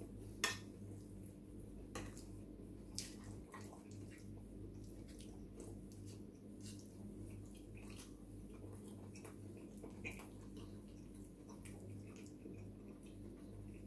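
Faint eating sounds: a metal fork clicking and scraping on a plate as it cuts through sauced ravioli, with wet chewing between the clicks, over a steady low hum.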